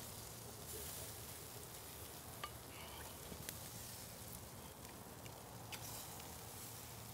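Ribeye steaks faintly sizzling on a charcoal kettle grill as melted garlic butter is brushed onto them, with a few small pops.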